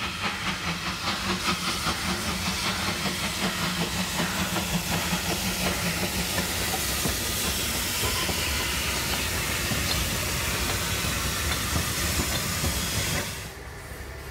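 Narrow-gauge steam locomotive working past at close range: a quick run of regular exhaust beats with steam hissing. The sound drops abruptly about a second before the end.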